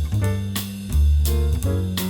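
Instrumental background music with a steady beat and a bass line that changes notes about every half second to a second.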